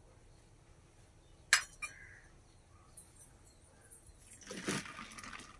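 A stainless-steel vessel clinks sharply about a second and a half in, with a smaller clink just after. Near the end, water is sprinkled by hand onto a banana leaf for about a second.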